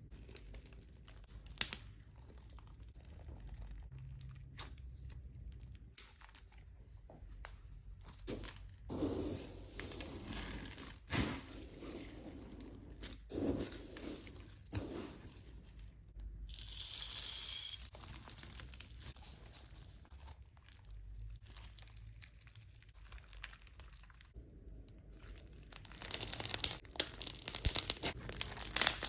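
Slime being squeezed, stretched and poked close to the microphone, with irregular crackles, pops and crinkling. A longer rustling burst comes about 17 seconds in, and the crackling grows denser and louder in the last few seconds.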